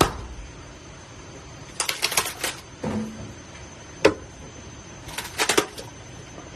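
Sharp cracks and knocks of dry wood being handled. There is a single knock, then a quick rattling cluster of cracks about two seconds in, single knocks, and another cluster near the end.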